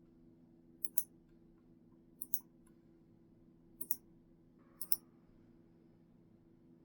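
Computer mouse button clicking: four quick double clicks, about a second and a half apart, over a faint steady hum.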